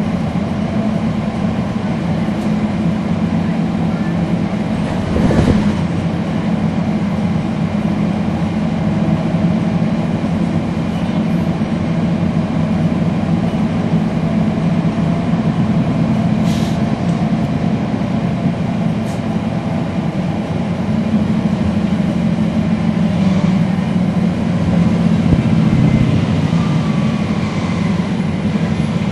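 Cummins ISL9 inline-six diesel and ZF driveline of a NABI 40-SFW transit bus running, a steady low drone heard on board, with a thump about five seconds in.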